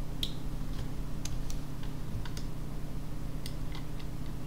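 About ten scattered clicks of a computer mouse and keyboard being worked, over a steady low hum.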